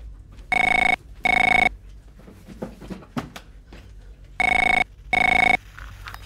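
Office desk phone ringing with an electronic double ring: two short rings about a second in, then two more about four seconds later, signalling an incoming call.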